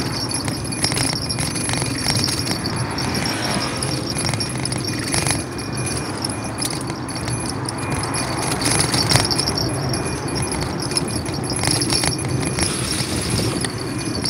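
Bicycle rolling over block paving, rattling with many small clicks and jingles over a steady rushing noise of the ride.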